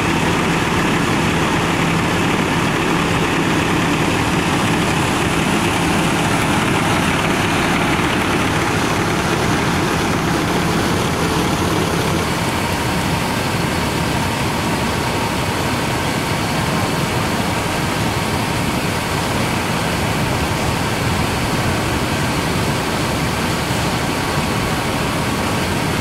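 Fire truck diesel engine running steadily, a loud continuous engine noise with a low hum; the sound changes about twelve seconds in.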